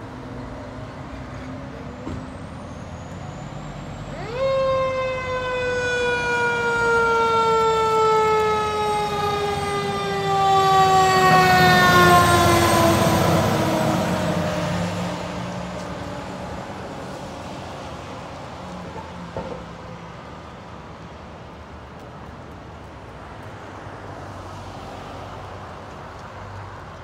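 Fire truck siren wailing up suddenly about four seconds in, then slowly falling in pitch over about ten seconds, as the fire apparatus pull out. The trucks' engines are loudest as they pass, about twelve seconds in, then fade into street traffic.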